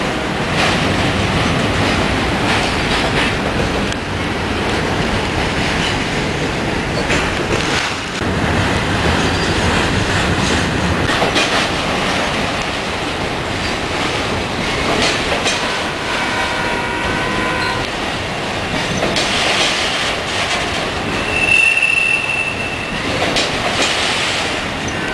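Freight train passing close by: CSX diesel locomotives go by first with a heavy low engine sound. A string of autorack cars follows, their wheels clattering over the rails with brief high-pitched squeals, the loudest one near the end.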